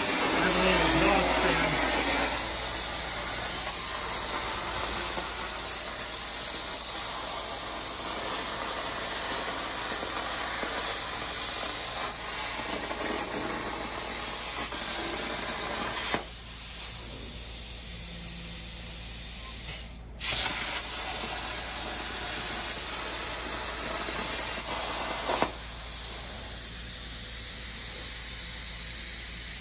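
Plasma torch on a CNC plasma table cutting steel sheet: a steady, loud hiss. About 16 s in, and again about 25 s in, the cutting sound drops to a thinner hiss as the arc goes out between cuts. Just after 20 s there is a brief break before it starts up again.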